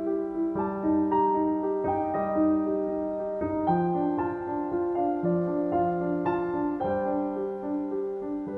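Background piano music: a slow, gentle piece of struck notes in a repeating figure over held bass notes.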